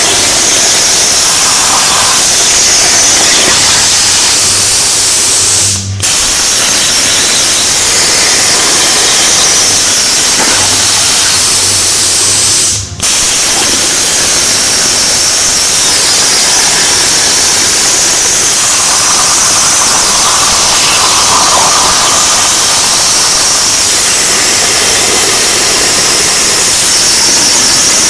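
Hypertherm Powermax45 air-plasma torch on a CNC table, cutting quarter-inch steel at 45 amps: a loud, steady hiss of the arc and air jet with a low hum under it. The hiss cuts out briefly twice, about six and thirteen seconds in, as the arc stops between cuts and restarts on the next.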